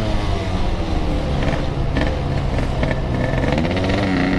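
Yamaha RX-King's 135 cc two-stroke single-cylinder engine through a Packing Power exhaust, its pitch falling as the throttle eases off, then rising again about three and a half seconds in as it pulls away.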